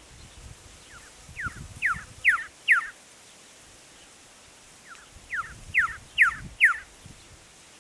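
Male red-lored whistler singing: two phrases of about five quick, sharply falling whistled notes each, the second phrase a couple of seconds after the first, over a low rumble.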